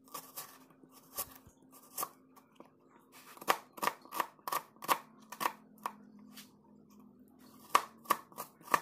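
Kitchen knife slicing a red onion on a cutting board: crisp taps as the blade cuts through and strikes the board, at uneven intervals, quicker in the middle, then a pause of nearly two seconds before a last quick run of cuts.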